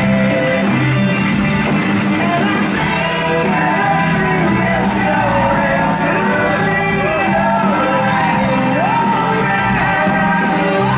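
Rock and roll song with a singer, playing loud and steady as music for a burlesque stage act.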